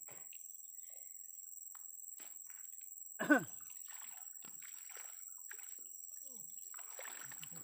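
Steady high chirring of crickets, with scattered faint splashes and knocks of water. About three seconds in comes one short, loud call that falls steeply in pitch.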